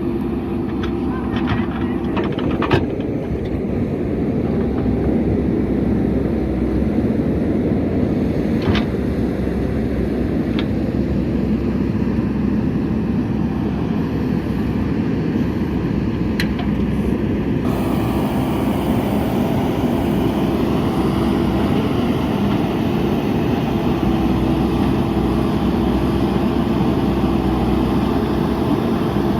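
Diesel engine of a JCB backhoe loader running steadily while it digs, with a few short sharp clanks.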